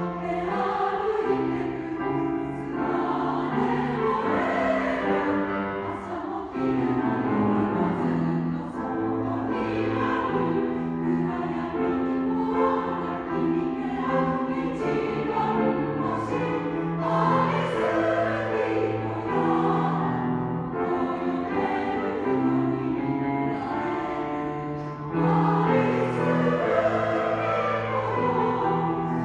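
Two combined community choirs singing a song together in sustained chords, with accompaniment. The singing swells louder near the end.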